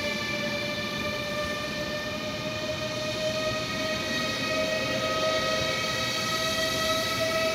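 Siemens Velaro D high-speed train (DB ICE 3, class 407) pulling out, its traction drive giving a whine of several tones that rises slowly and evenly in pitch as it gathers speed, over a low rumble.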